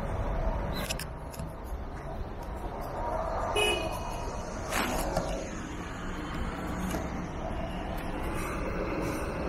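Steady city street traffic noise, with a short horn toot about three and a half seconds in and a sharp click about a second later.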